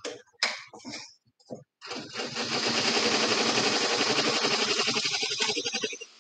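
Embroidery machine stitching at speed, a dense mechanical run with a rapid even beat. It starts about two seconds in after a few light clicks and stops abruptly near the end.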